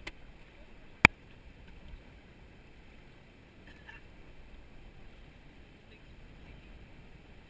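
Steady rush of river water around an inflatable paddle raft drifting downstream, with one sharp knock about a second in.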